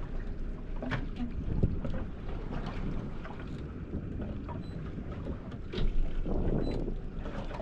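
Fishing boat on open water: a low rumble with wind buffeting the microphone, and a few sharp knocks, the loudest a little before six seconds in.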